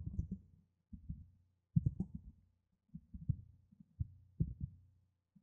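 Computer keyboard typing in short bursts of keystrokes, heard as dull low thuds, over a faint steady low hum.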